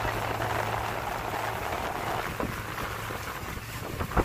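Tour boat under way: the engine running with a steady low hum beneath the rush and splash of water along the hull, the water noise easing about halfway through. A sharp knock comes right at the end.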